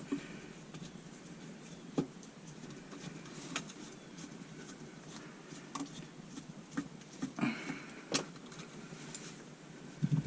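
Scattered light clicks and taps of hand tools and wires being handled while the ground wire is disconnected from a garbage disposal, with several sharper knocks among them.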